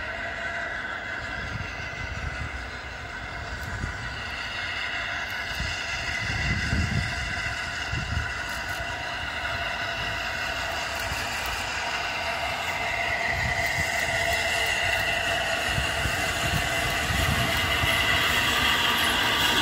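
Steam train on the move, with several steady high tones over a low rumble that rises and falls; it grows gradually louder toward the end as it draws closer.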